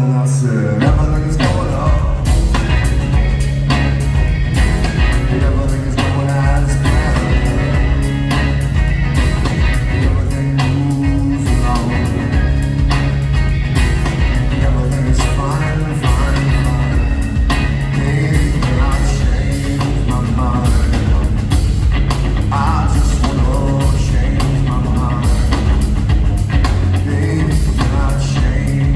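Rock band playing live, with a strong bass line and steady drum hits under guitar, and some singing.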